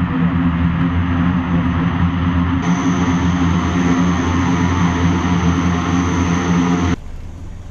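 Twin-turboprop transport plane taxiing with both engines running: a steady propeller drone under a high turbine whine, the whine growing stronger about two and a half seconds in. The sound cuts off abruptly near the end.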